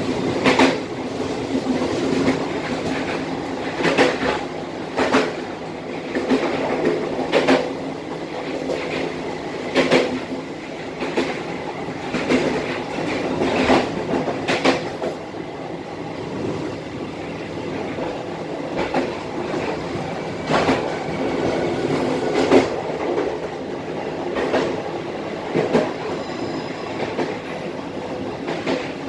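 Cikuray passenger train's wheels running on the rails, a steady rumble with a sharp clickety-clack every second or two as the wheels cross rail joints. The train is slowing from about 53 to 36 km/h as it comes into a station.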